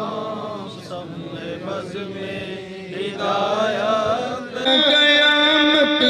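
A voice chanting a devotional recitation in long, wavering held notes. It falls quieter for a few seconds in the middle, then swells into a loud sustained note near the end.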